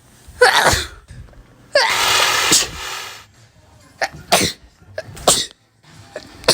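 A person sneezing over and over: four sneezes in a few seconds, the second a long, drawn-out one, with another just starting at the end.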